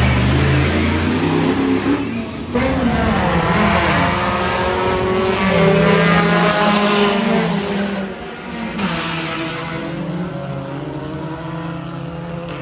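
Dirt-track stock cars racing, their engines revving up and down as they run past. The sound changes sharply about two and a half and eight seconds in.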